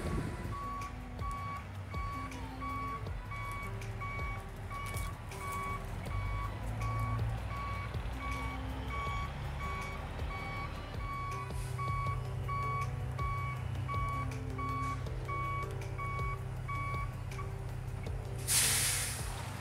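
Heavy-machine backup alarm beeping steadily at about two beeps a second over a low engine rumble that grows louder about halfway through. The beeping stops near the end, followed by a short, loud hiss.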